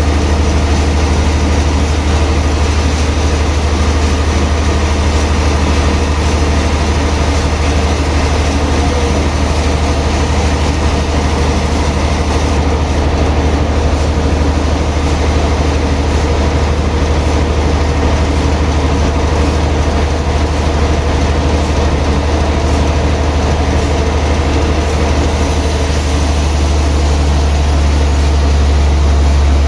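Heavy sawmill machinery running with a steady, loud low drone and hum. The hum shifts and grows a little louder near the end.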